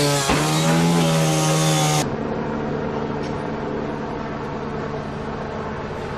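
A chainsaw running at high revs, its pitch dipping briefly as it bites into timber, cut off abruptly about two seconds in. After the cut, a steady low hum of vehicle engines idling.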